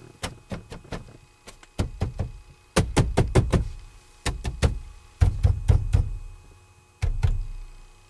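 Light switch on a 2013 Hyundai Sonata's multifunction stalk being twisted back and forth through its detents: sharp clicks and knocks in bursts of two to six, about one burst a second. The switch is being cycled through off, parking lights and headlights to catch an intermittent flicker of the lights.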